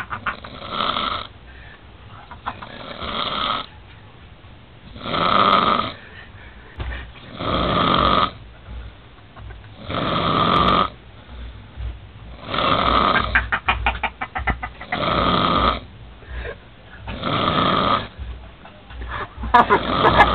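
An old man snoring heavily in deep sleep, one long rasping snore about every two and a half seconds, eight or nine in all. He is passed out wasted.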